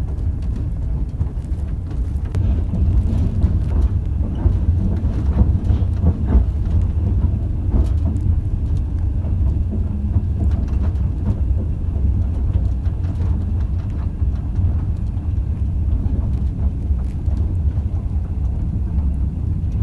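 Passenger train running, heard from inside a compartment carriage: a steady low rumble with scattered knocks and clicks of the wheels over the rails.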